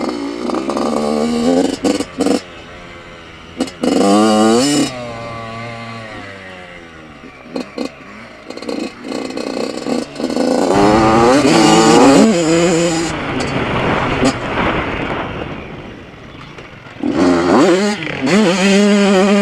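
Yamaha YZ85 two-stroke engine being ridden hard, its revs surging up and falling back again and again as it is worked through the gears, with wind noise on the onboard camera. The revving comes in three main surges, near the start, around the middle and near the end, with quieter, lower running between.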